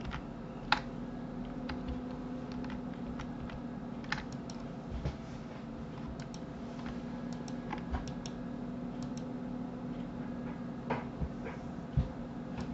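Sparse computer keyboard key presses and mouse clicks, with a sharper click about a second in and another near the end, over a steady low hum.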